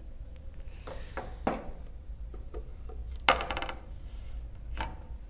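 Knocks and clunks as a small welded steel frame with pipe rollers and its plywood board are handled and turned over on a table. The loudest is a metal clank a little over three seconds in that rings briefly.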